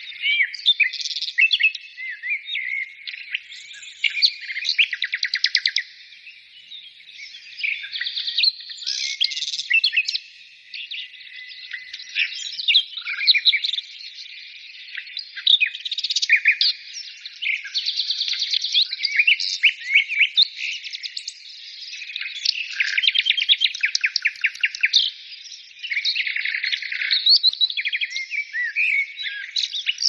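Songbirds singing: a continuous run of rapid trills and varied whistled phrases. In the second half it is the song of a tree pipit.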